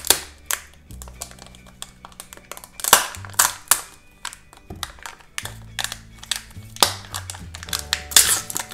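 Background music, overlaid by handling noises from unwrapping a surprise egg: repeated clicks and taps, and crinkling of its packaging that gets louder near the end.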